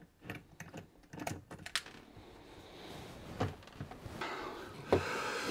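Light irregular clicks and taps of a small screwdriver and hard plastic parts being handled, as a Torx screw is worked out of a Dyson vacuum's battery pack, with a few sharper knocks.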